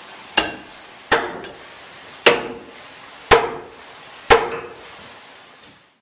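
Five heavy blows about a second apart, a long-handled tool striking on the sawmill's log carriage, each hit with a short ringing, over a low steady hiss.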